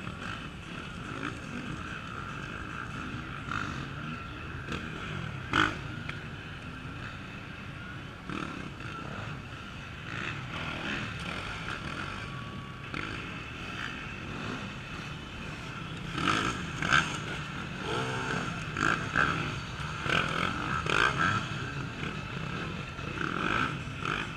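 Off-road enduro motorcycles running and revving as they ride through a log section, the engine note rising and falling, with heavier revving in the last third. A single sharp knock comes about five and a half seconds in.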